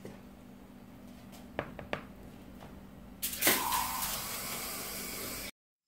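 Metal kitchen tongs click twice against a plastic container of flour while chicken is dredged. A little past halfway a loud, steady hissing rush starts, runs about two seconds, and cuts off suddenly.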